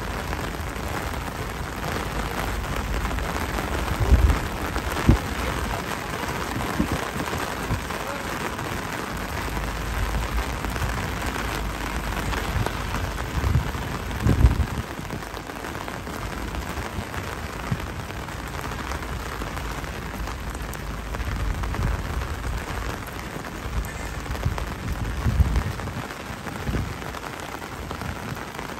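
Steady rain falling, a continuous even hiss, broken by a few short low thumps, the strongest about 14 seconds in.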